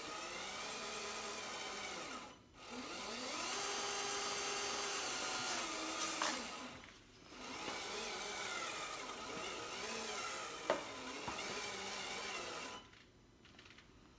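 Electric RC crawler drivetrain (550 35T brushed motor through the transmission in low gear with the differential locked) whining as the wheels spin free in the air. It is throttled up and down in pitch, cuts out briefly twice, and stops near the end.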